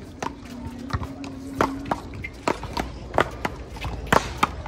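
Paddleball rally: a quick, irregular run of about a dozen sharp knocks as paddles hit the ball and the ball strikes the wall and ground.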